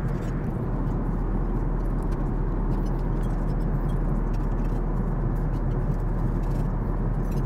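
Steady in-flight cabin noise aboard an Airbus A380: a constant rushing drone of airflow and engines with a deep low hum underneath.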